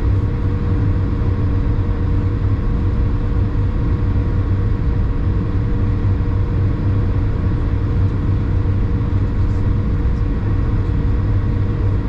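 Steady cabin drone of an Airbus A220 heard from a window seat. Its Pratt & Whitney PW1500G geared turbofans and the airflow give a deep, even rumble with a few steady hum tones over it.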